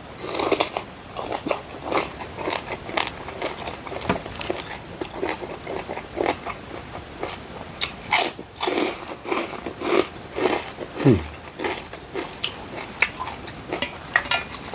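Close-miked chewing and crunching of chicken feet in a spicy pounded salad: irregular crunchy bites and chews, a few a second, with one brief downward-sliding sound about eleven seconds in.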